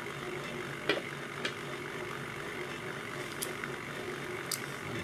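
Electric brass prep center motor running steadily while brass cases are trimmed, with a few sharp clicks of brass against the tooling.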